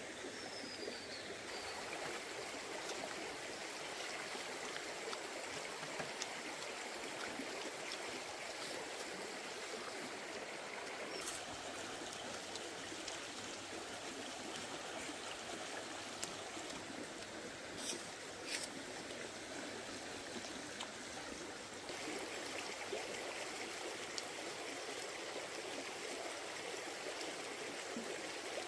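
Forest stream flowing and trickling steadily, with a few sharp clicks, two of them close together a little past halfway.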